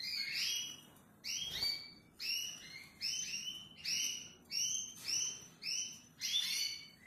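A pet bird calling over and over: a rapid series of short, harsh calls, about two a second, each bending in pitch.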